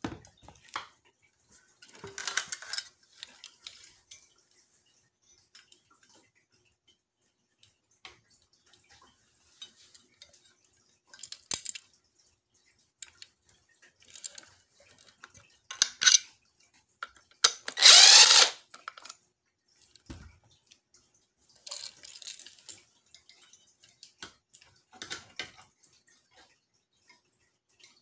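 Intermittent clinks, rattles and rustles of ceiling fan parts and hardware being handled during installation, with one louder noise lasting about a second about two-thirds of the way through.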